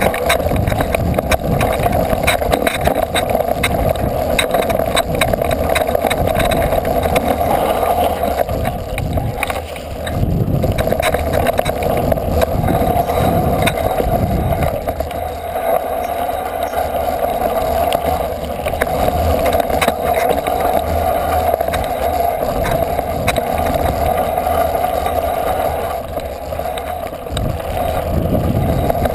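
Engine of an off-road motor vehicle running steadily as it rides over a rough dirt trail, with knocks and rattles from the bumpy ground. It eases off briefly about ten seconds in and again a few seconds before the end.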